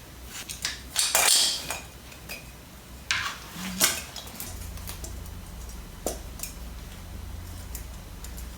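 Metal tools and small motorcycle hardware clinking and knocking, a handful of separate clicks with a short scraping rustle about a second in. A low steady hum comes in about halfway.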